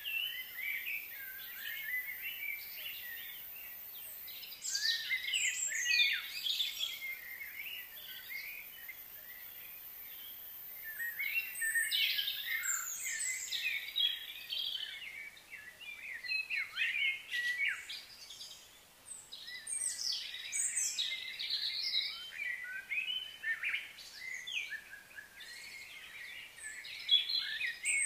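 Songbirds chirping and calling, many short quick notes overlapping in clusters that come and go.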